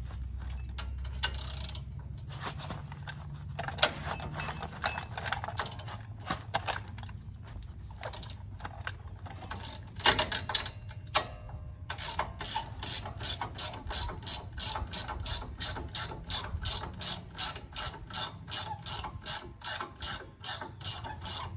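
Ratchet wrench with an 18 mm socket clicking as it backs out the rear axle-shaft retaining bolts. The clicks are scattered at first, then settle into a steady run of about three clicks a second from about halfway through.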